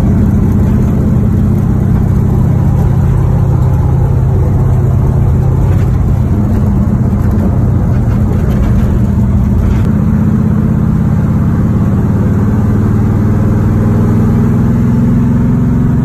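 1969 Camaro's V8 engine running under way, heard from inside the cabin, a steady low drone whose pitch rises slightly over the last several seconds.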